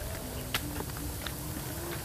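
Footsteps on a dirt road: irregular crunching steps about two a second over a steady outdoor hiss, with a faint low tone that shifts in pitch underneath.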